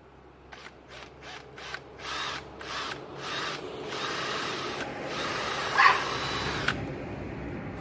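Power drill boring a pilot hole: a few short trigger pulses, then a continuous run of about four seconds that cuts off suddenly.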